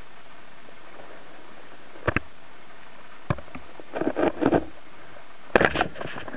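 Underwater, a steady hiss with a few scattered clicks and knocks, then a speargun fired about five and a half seconds in: a sharp clack followed by a short burst of rattling as the shaft and line run out.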